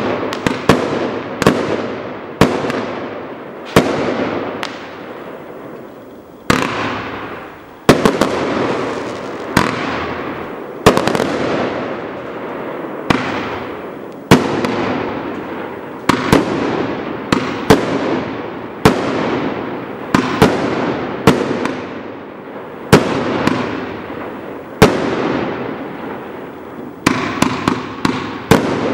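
Hades Party 98-shot, 20 mm calibre firework cake firing. Sharp bangs come about every one to two seconds, each trailing off before the next, with a quicker run of several bangs near the end.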